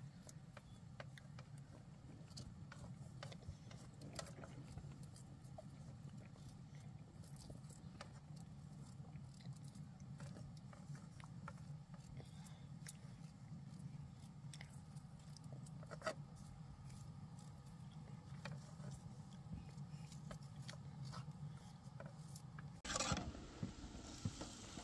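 Faint scattered clicks and scrapes over a steady low hum. About two seconds before the end, a louder sizzle starts: food frying in a hot pan.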